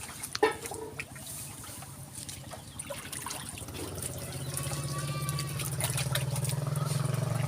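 Water splashing and trickling as a monkey moves about in its bath, with small splashy clicks. From about halfway a low steady hum builds and grows louder.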